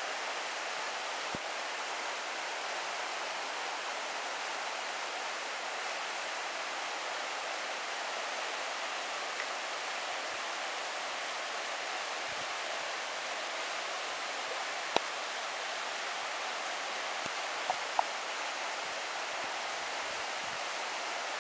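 Shallow river rushing steadily over a bed of pebbles and boulders. A few sharp clicks stand out in the second half.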